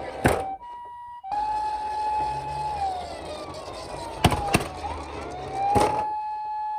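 Police-car wail siren: a held tone that slides down about three seconds in, climbs back and holds again. Under it runs a low rolling rumble, and a few sharp clacks cut through, the loudest near the middle and end.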